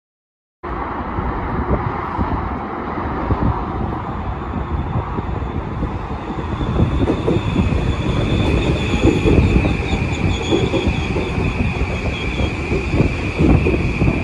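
Train running past: a heavy rumble with the clatter of wheels over the rails, and a steady high-pitched squeal joining about seven seconds in.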